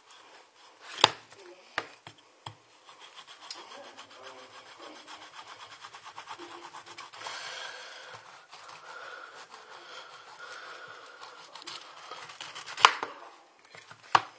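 Kitchen knife sawing through a whole pineapple's tough, spiky rind and flesh in rapid back-and-forth strokes. A few sharp knocks come in the first couple of seconds, and the loudest knock, near the end, is the blade coming through and striking the surface below.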